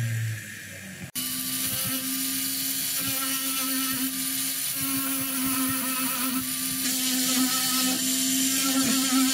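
Jeweller's rotary handpiece motor winding down with falling pitch, then, after a short gap, starting again abruptly about a second in and running steadily at high speed while an abrasive sanding band and rubber wheel grind and smooth the surface of a silver ring.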